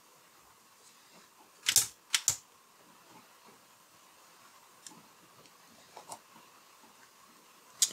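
Sharp clicks and taps over a faint background: a quick group of three loud ones about two seconds in, then a few faint ticks later on.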